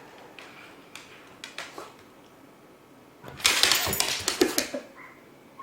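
A dog makes one loud, noisy outburst about three and a half seconds in, lasting about a second and a half, after a few faint clicks.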